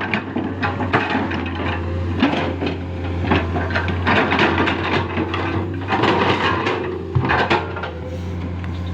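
Excavator's diesel engine running steadily, with irregular knocks and scraping clatter from the bucket working in soil.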